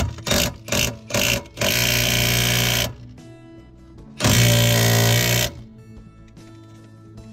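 Cordless impact wrench run in a few short blips, then in two steady runs of about a second each, loosening the lower mounting bolt of the air strut. Background music underneath.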